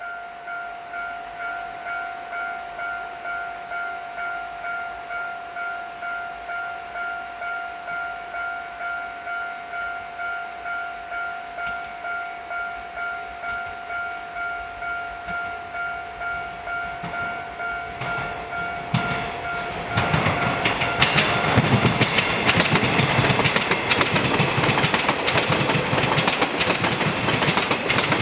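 Level-crossing warning bell ringing with a steady, evenly repeating ding about one and a half times a second. About 20 seconds in, a train passes at speed, much louder, its wheels clattering over the rail joints and covering the bell.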